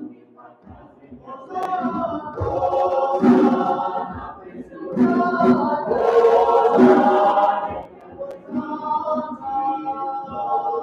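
Mixed college choir singing a South African hymn unaccompanied apart from a djembe beating underneath. The singing swells to full voice twice and falls back to quieter passages between.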